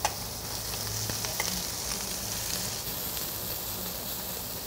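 Diced pork (dwitgogi) sizzling steadily on a hot griddle plate, a fresh batch just poured on. There is a sharp click at the start and a few fainter clicks in the first second and a half.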